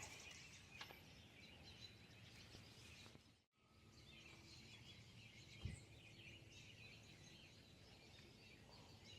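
Near silence: faint outdoor background with faint bird chirping, the sound dropping out for a moment about three and a half seconds in, and one faint knock a little later.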